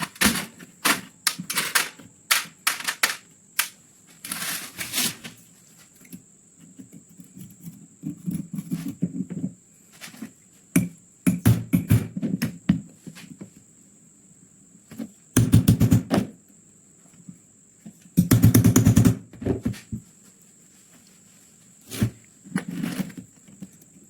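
Irregular clicks and knocks of metal gun parts being handled and worked with hand tools on a bench. About two thirds of the way through there are two short bursts of a fast buzzing rattle, each under a second long. A faint steady high whine runs underneath.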